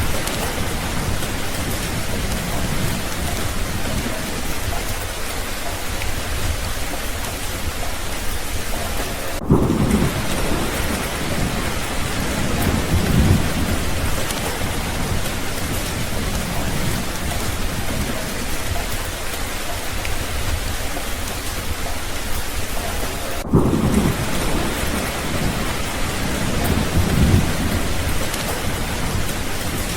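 Steady rain falling, with low rolls of thunder swelling and fading several times. The sound drops out for an instant twice.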